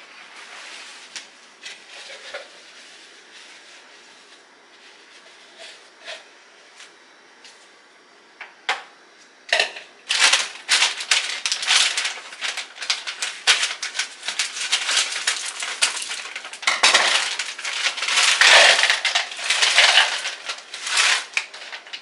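Plastic bag of cauliflower florets crinkling while florets are taken out and dropped into a measuring cup. A few scattered clicks at first, then dense crackling from about ten seconds in.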